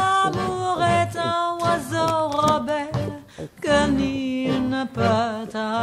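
Background music: a song with a solo voice singing held, wavering notes over a light accompaniment.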